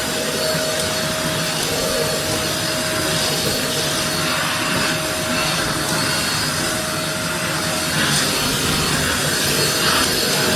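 Vacuum cleaner running steadily: a continuous rush of air with a steady motor whine, the whine dropping away about eight seconds in while the rushing goes on.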